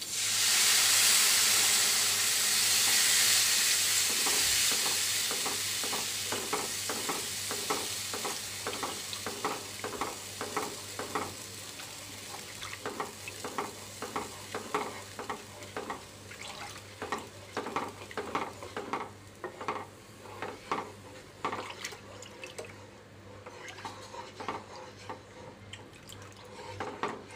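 Gram-flour and yogurt batter poured into a hot kadhai of oil and tempering spices, hissing loudly at first and dying away over several seconds. Then a spatula stirs the thickening kadhi, scraping the pan about twice a second.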